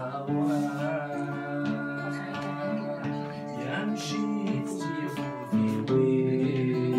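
Acoustic guitar played live, chords strummed and left ringing, getting louder about five and a half seconds in.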